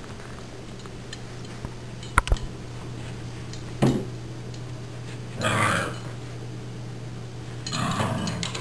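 Puppies play-fighting: two short, throaty play growls, one about halfway through and one near the end. A few sharp knocks and a thump come a little earlier, from the scuffle on the carpet and against the table.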